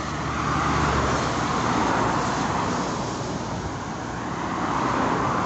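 Road traffic passing on a busy highway: a steady rush of tyre and engine noise that swells as vehicles go by, about a second in and again near the end.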